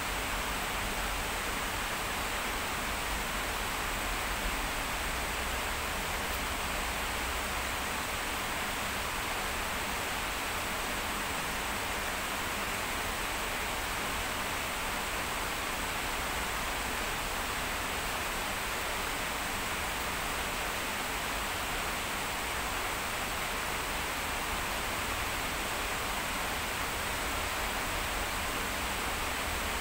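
Heavy rain falling in a steady, even hiss that neither swells nor breaks.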